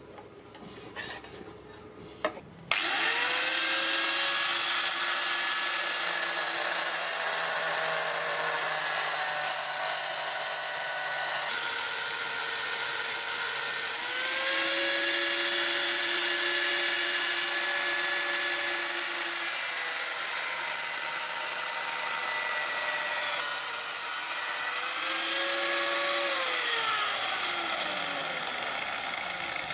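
Electric angle grinder starts suddenly about three seconds in and grinds the steel meat-cleaver blade, with a steady gritty whine that rises and settles in pitch several times and falls away near the end. A faint scratching of the blade being marked out comes before it.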